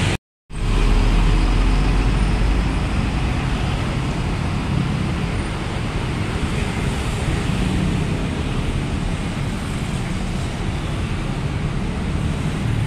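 Steady traffic noise with the low rumble of bus engines as buses pull away down the road. The rumble is strongest in the first few seconds, after a brief dropout near the start.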